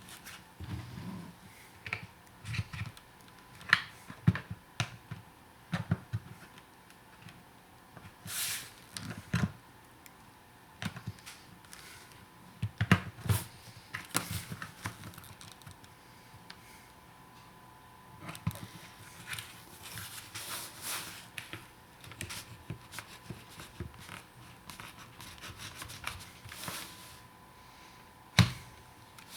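Irregular clicks, scrapes and knocks of a car sun visor being worked apart by hand, a knife blade prying and scraping at its hard plastic shell. A sharp click comes near the end.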